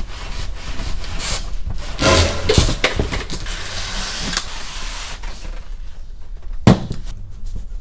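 Irregular scraping and rustling of things being shifted and handled, with one sharp knock near the end.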